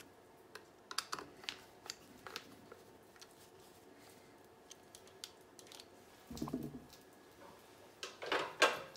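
Light, scattered clicks and scrapes of a hand screwdriver turning the fixing screws of a metal switch base plate on a wall box. A louder rustle of handling comes about six and a half seconds in, and the loudest one near the end.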